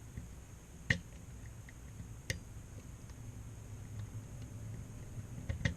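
Small sharp clicks from a 7-pin tubular lock being picked, the pick pressing individual pins: a clear click about a second in, another after two seconds, and a quick pair near the end, with faint ticks between. A faint steady low hum lies underneath.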